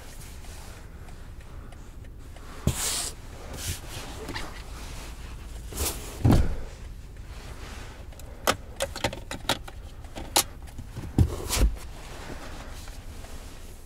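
Handling sounds at the rear seats of a BMW 3 Series (G20): two heavy thumps, about three and six seconds in, then a quick run of small sharp clicks a few seconds later.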